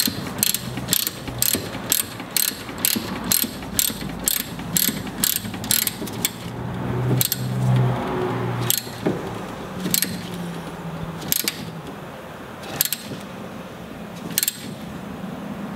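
Hand ratchet clicking as it tightens a cap head screw on a steering clevis: quick strokes at about two clicks a second, then slower, more widely spaced clicks after about six seconds. The screw seats flush.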